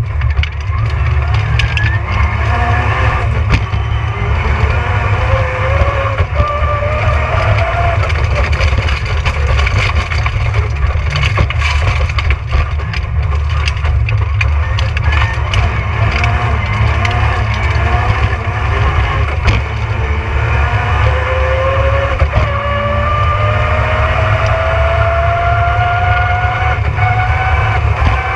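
Rally car engine driven hard on a special stage, its revs climbing and dropping through the gears, with a long pull from about 22 seconds in to the end. Short knocks and rattles from the car run throughout, over a heavy low rumble.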